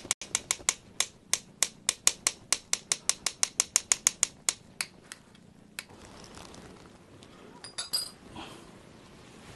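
A spoon clinking rapidly against a bowl, about five even strikes a second, as wet cat food is stirred with water into a soft mush; the clinking stops about five seconds in, followed by fainter scraping and a brief clatter near eight seconds.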